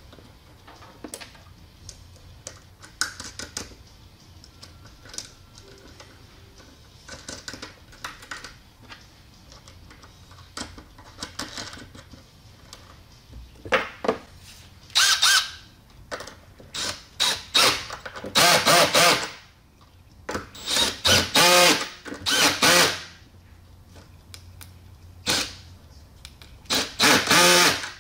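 Cordless drill-driver spinning nuts down onto the copper terminal studs of a speaker wiring block, in a series of short bursts through the second half. Before that there are only small clicks of hardware being handled.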